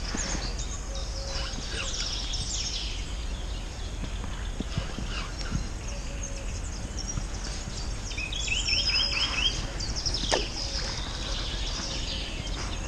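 Songbirds singing and calling, with a run of quick repeated chirps about eight seconds in, over a steady low background rumble. A single sharp click comes about ten seconds in.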